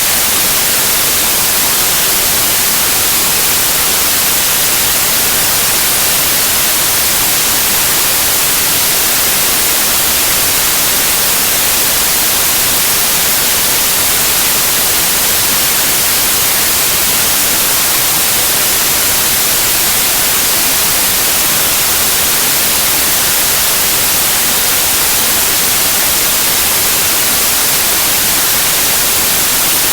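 Steady white noise: a loud, even hiss that never changes, strongest in the highest pitches.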